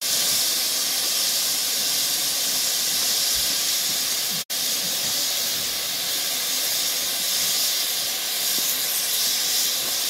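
A standing 1916 Decauville narrow-gauge steam tank locomotive letting off steam: a loud, steady hiss, broken off for an instant about halfway through.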